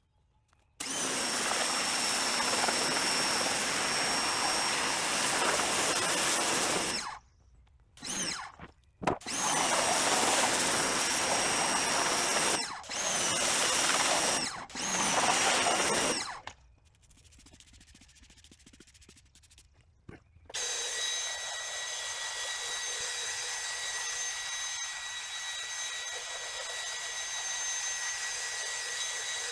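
A drill-driven scrub brush working a carpet floor mat in several runs of a few seconds each, the motor spinning up at the start of each run. About twenty seconds in, a steadier motor starts and runs with a constant high whine.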